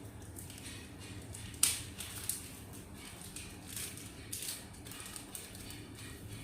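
Hands handling a TV's packaging and parts: a sharp click about a second and a half in, then scattered softer clicks and rustles over a low steady hum.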